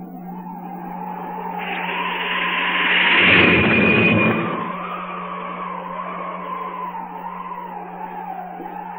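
Cartoon sound effect of a vehicle rushing in and skidding through snow: a whooshing swell that peaks with a deep rumble around three to four seconds in, then fades. Under it run a steady low hum and a wavering high tone.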